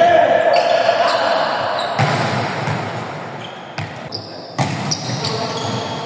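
Volleyball rally on an indoor court: several sharp smacks of the ball being struck and hitting the wooden floor, most of them in the second half, with players' voices.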